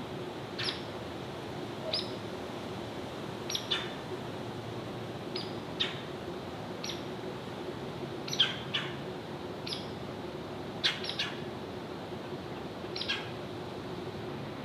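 Small songbird giving short, high chip notes, roughly one a second at irregular intervals and sometimes in quick pairs, over a steady low hum.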